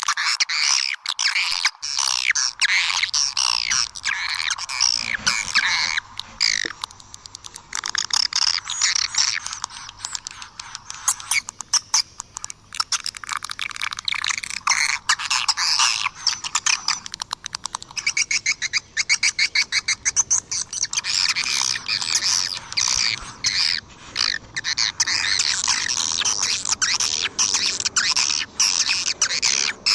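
A flock of swiftlets twittering in a dense, continuous chatter of high squeaky calls, broken by rapid trains of sharp clicks. This is a swiftlet calling sound, the kind played to lure the birds into a nesting house.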